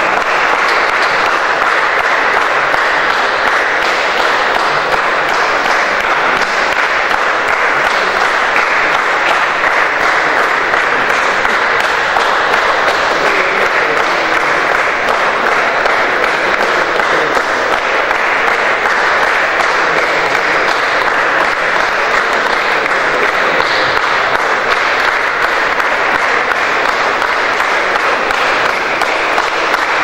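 A group of people applauding, clapping their hands steadily without a break.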